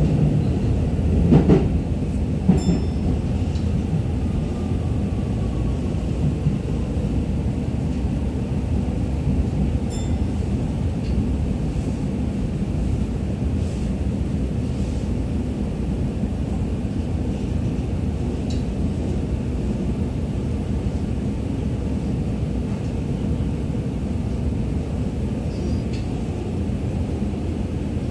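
Interior running noise of a Tokyo Metro 17000 series electric train under way: a steady low rumble of wheels on rail, with two sharp knocks in the first few seconds.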